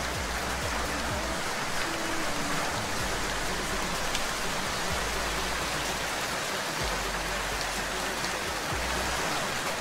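Steady rain falling, an even, dense hiss without a break.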